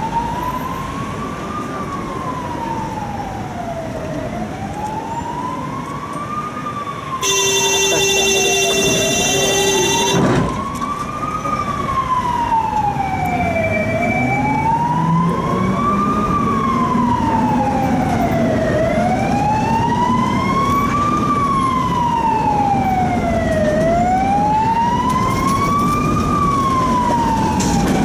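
Emergency vehicle siren wailing, slowly rising and falling about every five seconds. About seven seconds in, a loud steady buzzing tone sounds for about three seconds, and later a low hum climbs in pitch as a motor speeds up.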